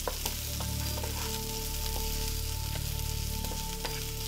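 Carrots and raisins sizzling as they fry in oil in a pan, with scattered clicks of a utensil stirring against the pan.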